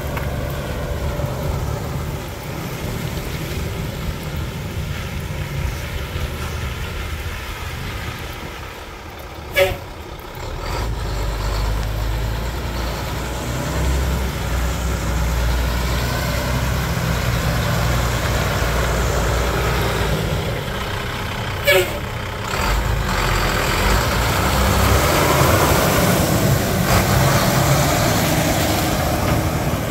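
1998 tandem-axle dump truck's diesel engine running as the truck drives around, its low rumble growing stronger about ten seconds in. Two short sharp sounds stand out, about twelve seconds apart.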